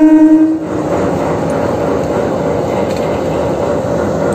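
Diesel locomotive horn blaring one steady note that cuts off about half a second in, leaving the locomotive's diesel engine running with a steady rumble and a faint whine.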